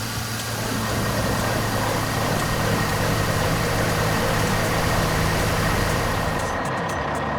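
Heavy-machinery diesel engine running steadily, the engine sound of an animated wheel loader, with a low hum under a dense hiss that thins near the end.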